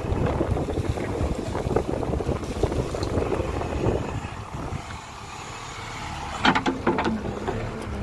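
JCB 3DX backhoe loader's diesel engine running as the backhoe bucket digs into soil, with wind buffeting the microphone. A few sharp clanks come about six and a half seconds in, followed by a steady hum near the end.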